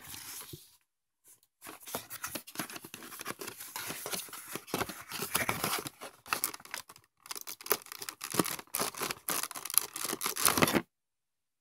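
Cardboard figure box being handled and opened by hand: quick, irregular scraping, rubbing and tearing noises. The sound cuts off suddenly about a second before the end.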